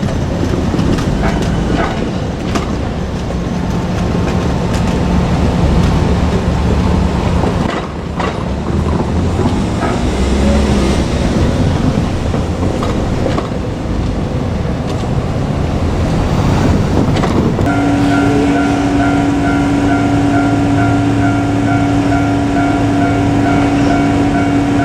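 JR Kyushu 817 series electric train rolling past, with a heavy rumble and repeated clicks of wheels over the rails. About two-thirds of the way through, a steady pitched tone joins and holds.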